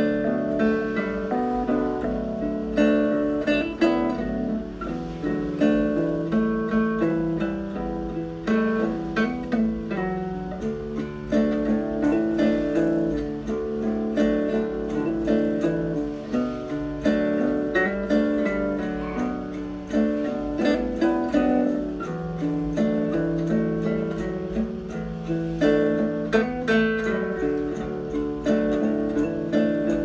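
Background music played on acoustic guitar, a steady run of plucked notes.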